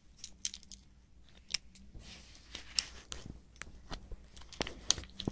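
Light, irregular plastic clicks and taps from a hinged lid on a small plastic eraser case being flipped open and the eraser inside being handled.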